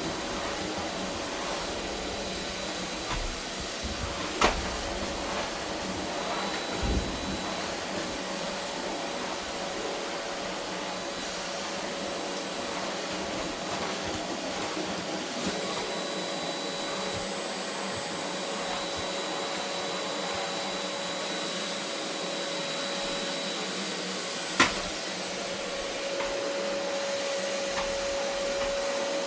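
Vacuum cleaner running steadily with a constant hum, broken by two sharp knocks, one about four seconds in and another about twenty-five seconds in.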